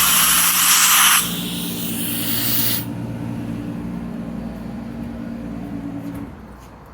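Hitachi PSD-3.7A inverter scroll air compressor shutting down: a loud rush of air hiss drops away about a second in and again near three seconds, leaving a steady motor hum that grows quieter and cuts off about six seconds in.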